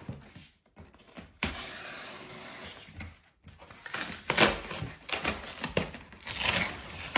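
Cardboard shipping box being torn open and unpacked: a long ripping noise starting about a second and a half in, then a run of scrapes, rustles and knocks of cardboard being handled.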